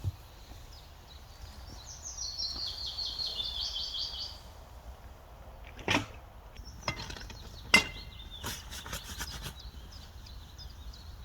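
A small songbird sings a quick, falling run of notes lasting about two seconds. Later come a few sharp knocks and clicks, the loudest nearly eight seconds in, among faint chirps.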